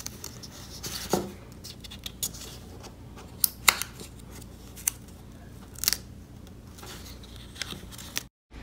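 Clear plastic protective film being peeled off an AirPods charging case: scattered sharp crackles and clicks, the loudest a pair about three and a half seconds in, over a steady low background hum. The sound cuts off abruptly just before the end.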